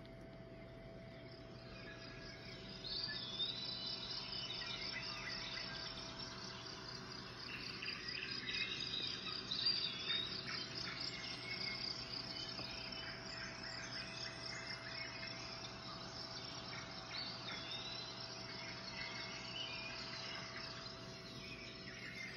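Crickets chirping in a pulsing trill with bird calls over it, coming up about three seconds in, like a night-time woodland ambience. A faint steady hum sits underneath.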